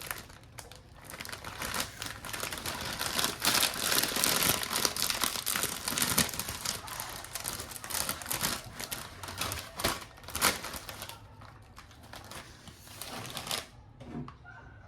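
Plastic packaging crinkling and rustling as it is handled, a dense run of crackles that stops suddenly near the end.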